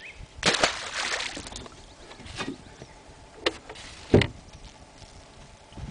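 A bass tossed back overboard splashes into the water about half a second in. A few short knocks follow, the loudest about four seconds in.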